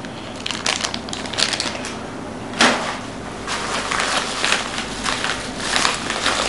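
Packaging crinkling and rustling in irregular bursts as it is handled and opened, with one louder crack about two and a half seconds in and denser rustling toward the end.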